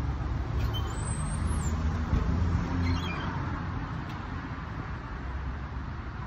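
Steady low rumble of road traffic that swells about two to three seconds in, with a few faint high chirps over it.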